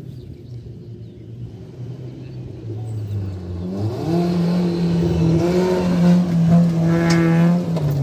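Rally car engine approaching at speed and growing louder. Its pitch jumps up sharply about four seconds in, and the engine then stays at high revs.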